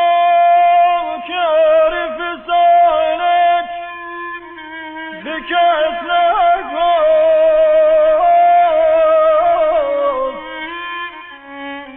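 Persian classical violin playing a slow, unmetered melody without percussion: long held notes broken by quick ornamental turns and slides, thinning out near the end.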